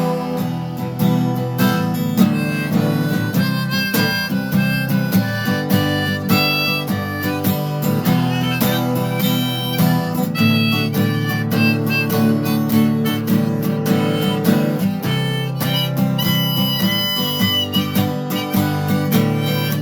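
Key-of-G harmonica played over strummed acoustic guitar, an instrumental break with a long held harmonica note near the end.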